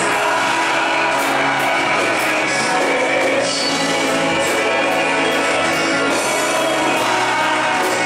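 Live Brazilian gospel worship music: a male singer sings a hymn in Portuguese into a microphone over instrumental accompaniment with cymbal strokes.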